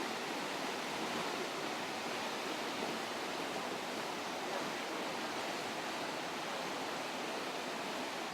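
Flash-flood water rushing through a creek channel: a steady, unbroken noise.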